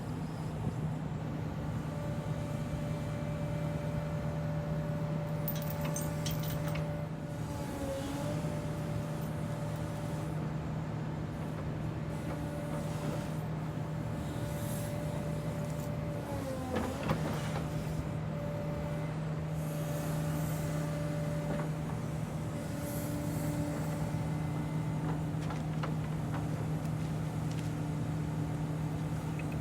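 Portable band sawmill's engine running steadily, its pitch sagging briefly twice as it takes load.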